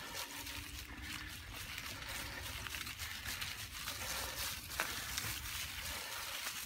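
Steady rustling and crunching of dry fallen leaves under rolling bicycle tyres and a running dog's paws on a forest track, with one sharp click a little before five seconds in.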